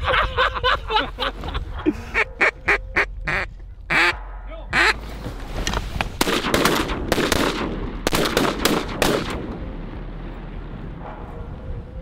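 Loud duck quacking: a quick run of short quacks, then several longer, drawn-out quacks, fading to quiet for the last couple of seconds.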